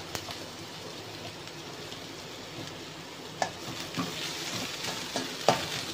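Chopped onions sizzling steadily in hot oil in a stainless steel kadai as they are stirred with a perforated metal spoon. A few sharp clinks of the spoon against the pan come in the second half.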